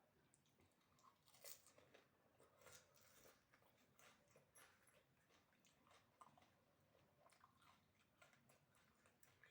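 A person chewing fuchka (pani puri), faint crisp crunches of the fried shells and wet mouth clicks at an irregular pace, the loudest crunch about a second and a half in.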